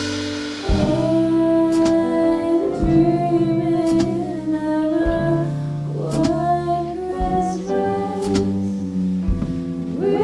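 Jazz combo playing a Christmas tune: held chords over a bass line, with sharp percussive accents about once a second.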